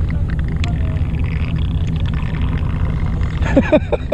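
Fishing boat's engine idling, a steady low rumble, with a few faint clicks about half a second in.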